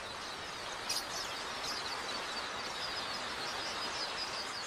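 A huge flock of quelea in flight: a steady, dense wash of chattering with many thin, high chirps over it.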